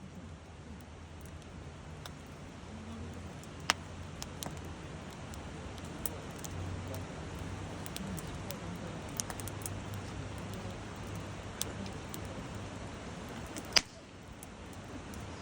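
Wood campfire crackling, with scattered sharp pops, one a few seconds in and the loudest near the end, over a low steady rumble.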